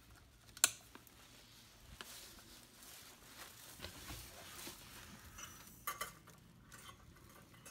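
Faint rustling and handling noise as a hotel-room curtain is moved and the phone is handled, with scattered clicks: one sharp click under a second in and a short cluster of clicks around six seconds in.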